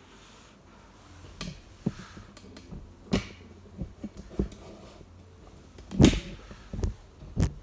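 Irregular knocks and clunks, about seven in all, the loudest about six seconds in, over a low steady hum.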